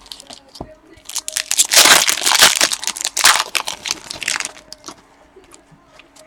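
Crinkling and crackling of a trading-card pack wrapper being handled, loud from about a second in for roughly three and a half seconds, with faint clicks and rustles before and after.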